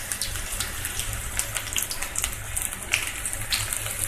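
Onion pakora batter deep-frying in hot oil in a kadhai: a steady sizzling hiss with many small crackles and pops.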